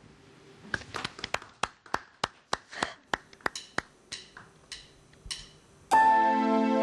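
A band's percussion tapping out an even beat of sharp clicks, about three a second, then the band's music comes in loudly near the end.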